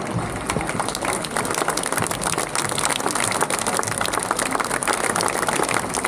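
A crowd clapping, a dense steady patter of applause that swells about half a second in.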